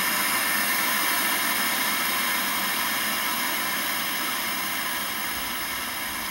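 CRT television's static hiss from its newly replaced speaker, a steady white noise that slowly gets quieter from about halfway through as the volume is turned down.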